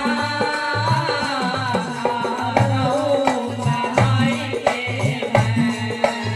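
Indian devotional music: a melodic line that bends in pitch, most likely a singing voice, over tabla hand drums playing a steady rhythm of several strokes a second.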